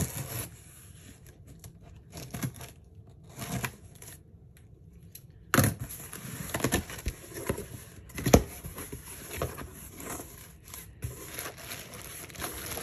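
Cardboard shipping box being opened by hand: packing tape torn along the seam and the flaps pulled open, with irregular scrapes and sharp crackles. Near the end, the plastic mailer bags inside rustle as they are handled.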